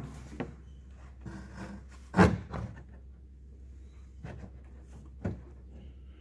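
Carpeted car trunk panel being handled and pressed into place: rubbing and several knocks, the loudest knock about two seconds in.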